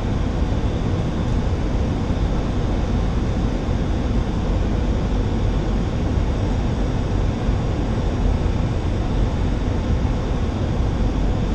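Steady flight-deck noise of a Boeing 737-800 on approach: an even rush of airflow and engine noise with a strong low rumble.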